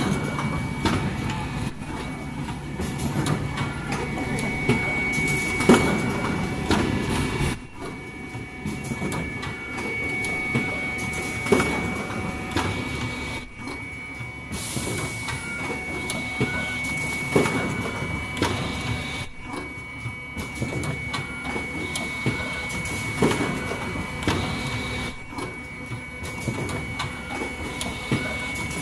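Automatic cup-mask production line running, with clattering stations and pneumatic actuators working over a steady high whine. A louder stroke repeats about every six seconds as the line cycles.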